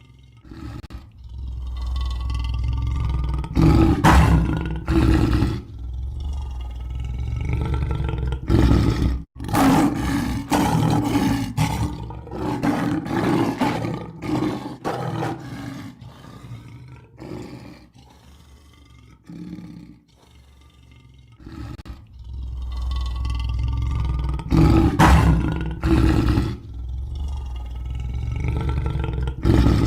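Lion roaring and growling in a run of long, deep, rumbling calls; the same sequence starts over about 22 seconds in.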